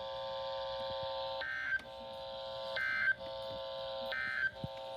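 Emergency Alert System end-of-message code on NOAA Weather Radio: three short digital data bursts, roughly a second apart, over a steady buzzing drone.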